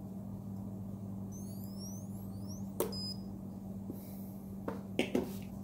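kWeld spot welder firing through hand-held probes onto nickel strip on a LiFePO4 cell: a sharp snap about three seconds in, followed by a short high beep, then a few more quick sharp snaps near the end, over a steady low hum.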